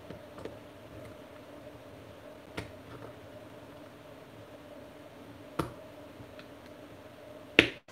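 A few light, sharp clicks from a small hand tool working at plastic model-truck parts, the loudest near the end, over a faint steady hum.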